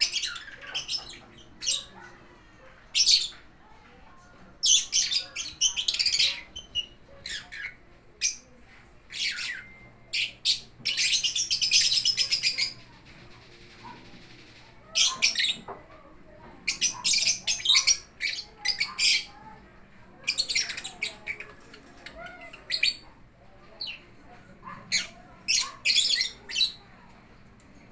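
Lovebirds chirping and squawking in short, high-pitched bursts, over and over, with a longer run of chatter about eleven seconds in.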